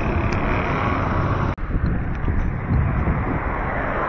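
Roadside traffic noise, with a car driving past close by and wind buffeting the microphone; the sound drops out for an instant about a second and a half in.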